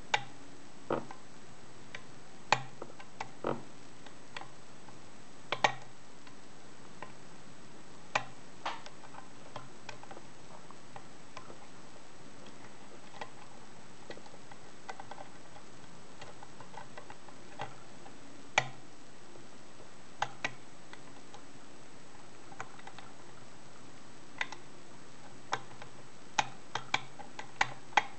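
Irregular sharp clicks of a hook pick working the pins of a six-pin Securit euro cylinder under tension, with pins clicking as they set. There is a quicker run of clicks near the end, as the lock goes into a false set.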